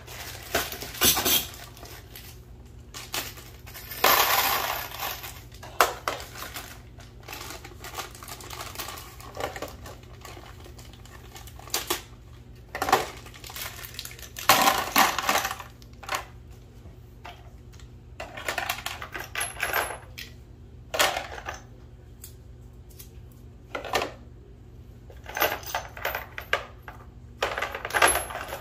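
Small metal PEX fittings and crimp rings clinking and rattling as they are handled and dropped into the drawers of a parts organizer, in irregular bursts with short pauses between.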